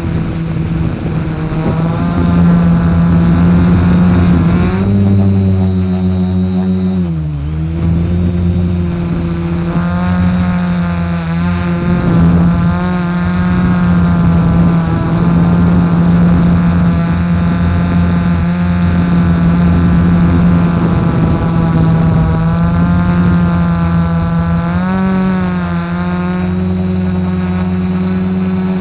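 F450 quadcopter's brushless motors and propellers buzzing steadily in flight, heard close from the camera mounted on the frame. The pitch shifts with throttle: it steps up about five seconds in, dips sharply and recovers about seven seconds in, and steps up again near twenty-five seconds.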